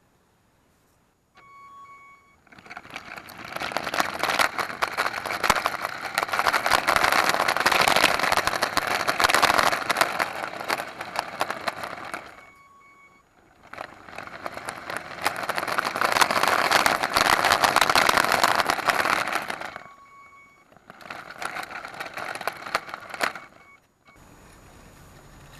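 Lego RC car driving in three runs: its electric motor and plastic chain-and-gear drive give a loud, dense rattling whir, the longest run lasting about ten seconds. Each run is preceded by a short beep.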